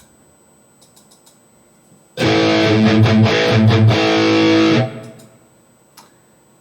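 Distorted electric guitar played through a high-gain Engl Savage 120 amp model on a digital modeling unit: a short riff of chugging chords that starts about two seconds in, stops near the five-second mark and rings out briefly. A few faint clicks before and after it.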